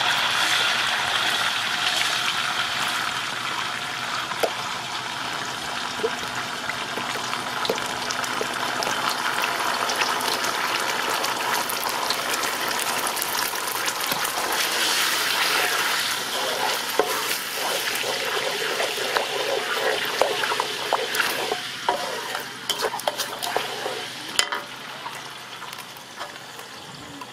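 Sauce sizzling in hot oil in a metal wok, stirred with a wooden spatula. Over the second half, frequent short scrapes and taps of the spatula against the wok.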